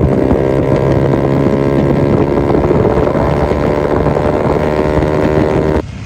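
Motorcycle engines running steadily at road speed, a continuous engine drone that cuts off abruptly just before the end.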